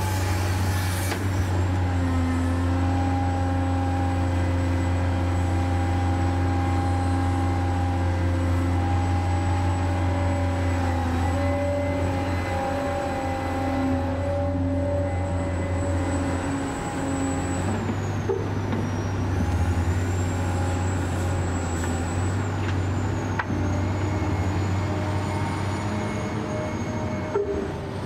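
Heavy vehicle engine running steadily at a low, even rumble, like construction machinery, with a faint high whine that wavers from about two-thirds of the way through.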